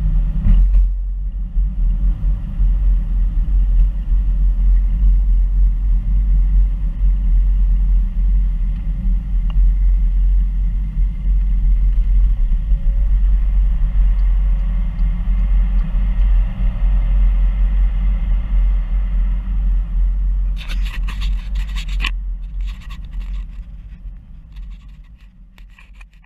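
Car driving on city streets, heard from inside the cabin: a steady low rumble of engine and tyre noise. About twenty seconds in there is a short cluster of knocks and rattles, and then the sound fades out near the end.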